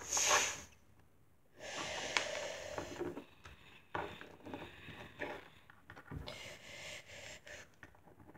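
A person's breathy, hissing mouth noises in short bursts, with a longer one about two to three and a half seconds in.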